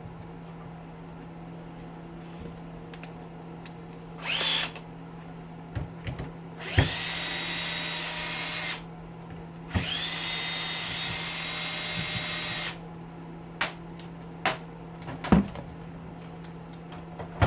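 Cordless power drill driving a magnetic nut driver bit, backing out bolts from the hedge trimmer's gear housing. It gives a brief blip about four seconds in, then two runs of about two and three seconds, each spinning up with a rising whine. Light clicks and clatter of handled parts come near the end.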